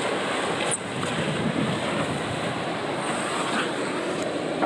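Steady rushing of water pouring down the boat slides and splashing at their foot, with wind on the microphone. Under a second in it cuts abruptly to a similar steady hiss as a heavy rubber boat skids across the wet artificial-turf runout.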